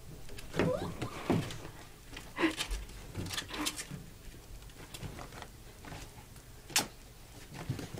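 A ferret and a chihuahua scrambling over clothes in a plastic laundry basket: irregular rustling and scuffling with several sharp knocks against the basket, and a few short squeaks in the first few seconds.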